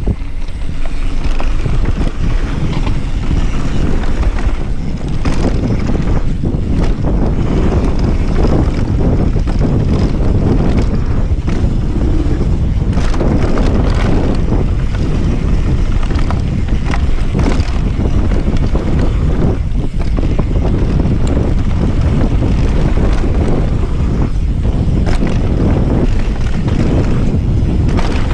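Wind buffeting the action camera's microphone as a mountain bike descends a dirt and gravel trail, with the low rumble of the tyres and frequent clattering knocks from the bike going over rough ground.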